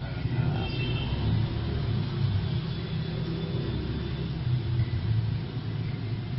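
Motor vehicle engine running steadily with a low rumble.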